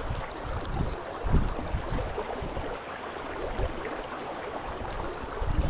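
Steady rush of fast river water, with low rumbles of wind on the microphone now and then.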